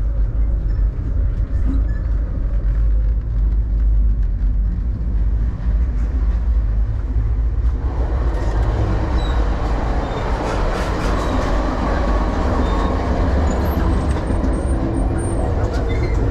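Passenger train running on the rails, heard from on board: a steady low rumble, joined about eight seconds in by a louder rushing rattle.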